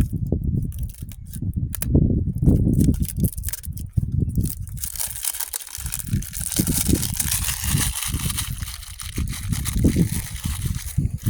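Small package being handled and cut open with a True Utility pocket multi-tool: clicks and rubbing at first, then, about five seconds in, a steady hiss of scraping and crinkling that lasts several seconds, over a gusty low rumble.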